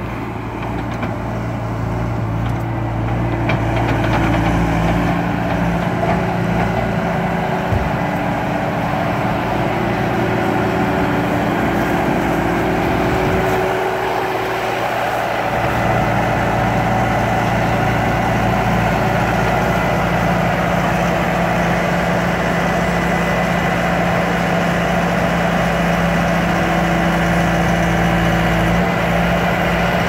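Bobcat S300 Turbo skid-steer loader's turbocharged diesel engine running steadily, its pitch shifting a few times as engine speed changes. One sharp knock about a quarter of the way through.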